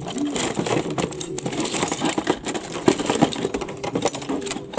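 Rummaging through a box of salvaged microwave parts: a continuous run of small plastic and metal pieces clattering, clicking and rustling against each other.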